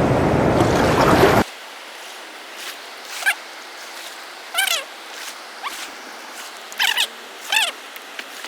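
A loud noise cuts off after about a second and a half. Then come short, repeated animal calls, each a quick rising-and-falling chirp, about four of them spread out over a faint steady background.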